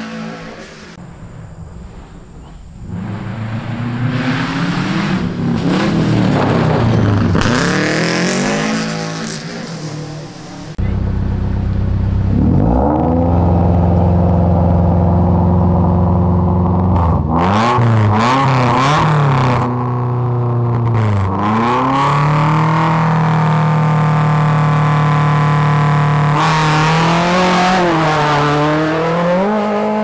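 Rally car engines. First a car accelerates past on a gravel stage, its revs rising and falling through gear changes. Then, about a third of the way in, a hatchback rally car sits at the start line: it idles, blips and holds its revs high, and near the end it launches away with rising engine pitch.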